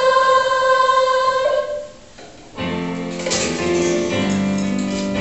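Choir holding the final note of a sung line, which stops a little under two seconds in; after a short pause, instrumental accompaniment comes in with steady chords.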